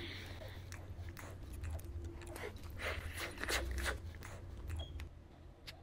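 Close-up mouth sounds of a person chewing a mouthful of food, with many sharp wet clicks that are thickest in the middle and thin out near the end.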